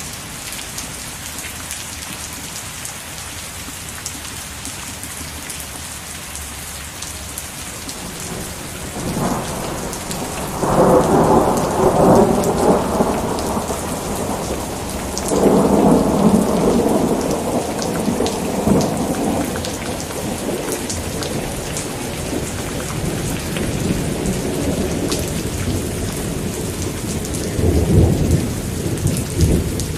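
Steady rain with rolling thunder. One rumble swells about nine seconds in, a second comes around fifteen seconds, and a shorter one comes near the end.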